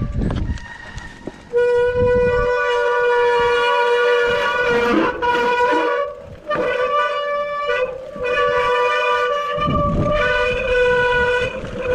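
Wet, muddy mountain-bike disc brakes honking: a loud, steady horn-like squeal under braking that starts a second or two in and dips out briefly a couple of times. Rolling tyre noise rumbles underneath at the start and again near the end.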